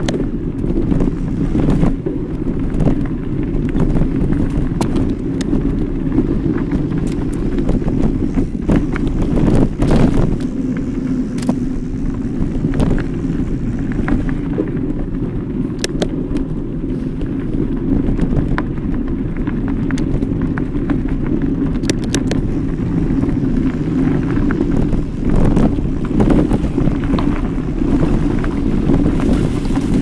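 Riding sound of a Specialized Turbo Kenevo SL e-mountain bike on a forest trail: a steady low rumble of wind buffeting the microphone and tyres rolling over dirt, with scattered sharp knocks and rattles from the bike over bumps.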